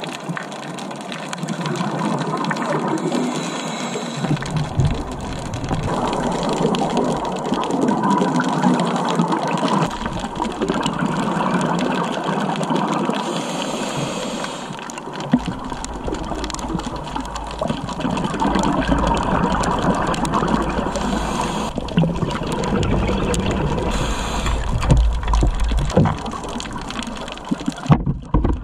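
Scuba diver's regulator breathing underwater: exhaled bubbles rush and gurgle in a steady, swelling wash, with a brief hiss from an inhalation now and then.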